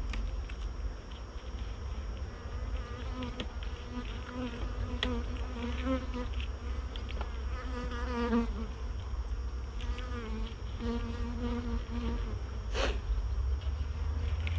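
Honeybees buzzing around an open hive, individual bees flying close past so the buzz swells, fades and bends in pitch, over a steady low rumble.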